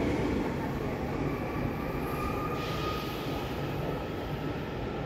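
A train running on the rails: a steady rumble of wheels and running gear with faint high tones above it, slowly getting quieter.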